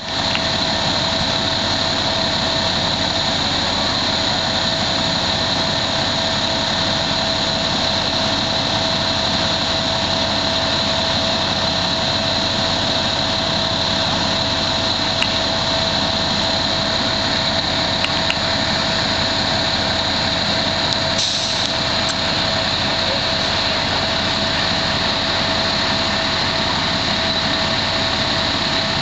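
Fire engine's engine running steadily with a constant whine over it. The engine is kept running, as at the scene of a fire.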